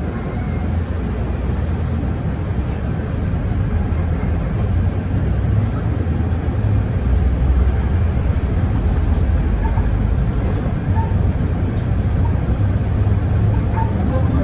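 Mercedes-Benz Citaro city bus under way: a steady low engine rumble with road noise, growing a little louder about halfway through.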